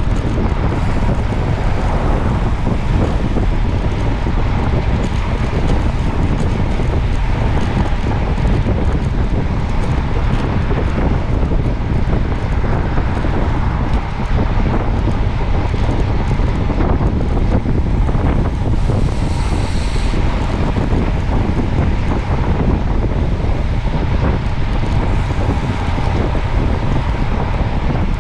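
Wind buffeting the microphone: a loud, steady rumble and hiss strongest in the lows, with no break.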